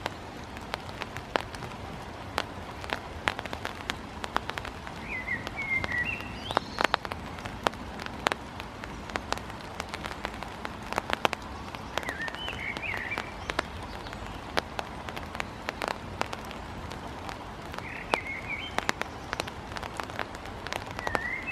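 Great tit pecking at a hawk-moth larva on gravelly ground: irregular sharp taps, several a second at times. A bird gives a short warbling call about every six seconds, four times.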